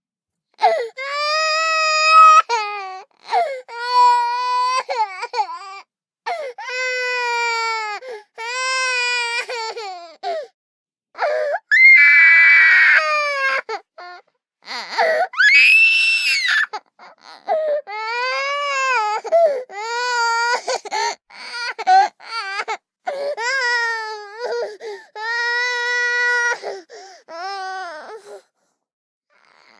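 A toddler crying: a string of drawn-out wailing sobs, each a second or two long, with short breaks between them, and a couple of higher, shriller screams about halfway through.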